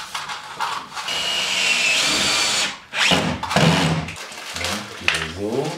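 Cordless drill-driver running in two or three bursts, driving screws into the wooden trim of an attic-stair hatch. Its motor whine steps up in pitch partway through the first and longest burst.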